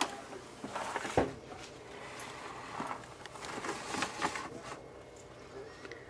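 Soft, irregular rustling and crinkling of a paper bag as an African grey parrot moves about inside it, with a soft thump about a second in.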